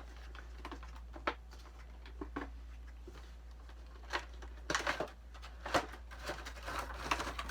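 Cardboard packaging of an action-figure box being opened by hand: scattered light clicks, taps and rustles, a few bunched together about two thirds of the way in, over a steady low hum.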